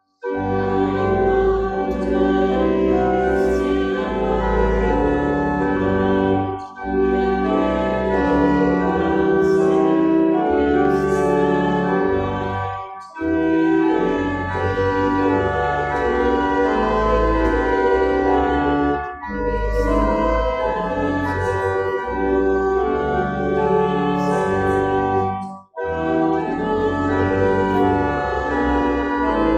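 Church organ playing a slow hymn in phrases of about six seconds, with a short break between each phrase.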